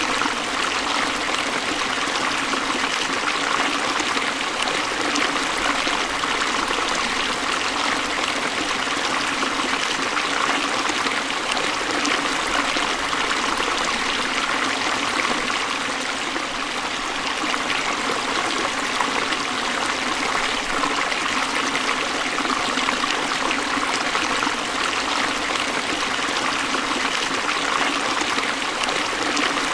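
Forest stream flowing over rocks: a steady, continuous rush and trickle of water.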